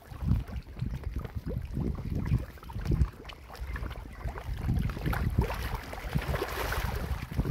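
Water splashing and sloshing as a dense crowd of pangasius catfish thrash at the surface, with uneven low rumbling surges underneath.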